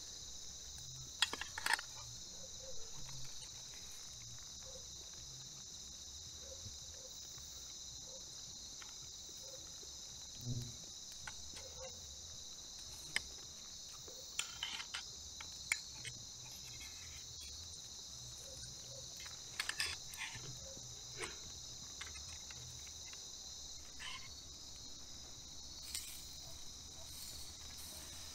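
A steady, high-pitched chorus of night insects, with a few sharp clicks of a fork scraping and tapping a metal pot while eating.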